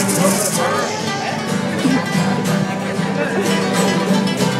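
Several acoustic guitars strummed together with a group of male voices singing along, a serenade.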